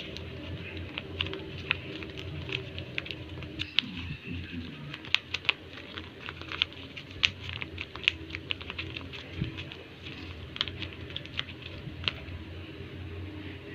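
Tape-covered paper squishy being squeezed and handled, crinkling with irregular sharp crackles.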